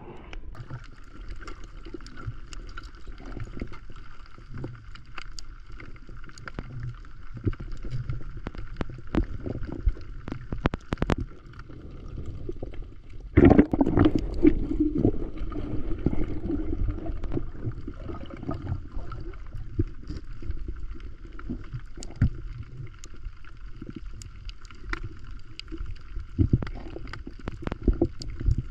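Underwater sound picked up by an action camera in its waterproof housing: a steady low water rumble with scattered clicks and knocks and a faint steady high whine. About halfway through comes a louder burst of gurgling.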